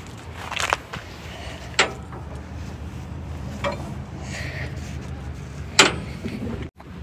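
A few sharp clicks and knocks over a steady low rumble, the loudest knock near the end, followed by a brief dropout to silence.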